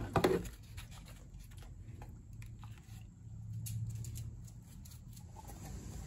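A sharp clatter from a metal tool chest drawer right at the start, then a scatter of light clicks and taps over the next few seconds. About five seconds in it gives way to faint, even ambience.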